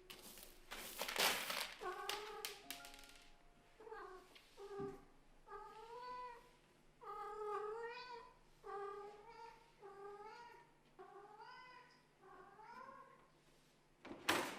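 Kitten meowing repeatedly: about ten short, high calls that bend in pitch, following a rustling noise at the start. A sharp knock comes near the end.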